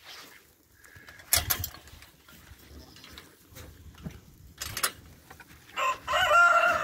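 A rooster crowing: one long held crow starting near the end. Before it, two short sharp clatters, about a second and a half in and about five seconds in.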